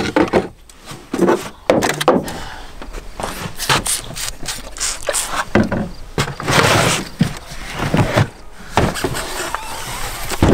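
Plastic storage totes and camp gear being shifted and rummaged through in a pickup bed: a run of knocks, clatters and scrapes.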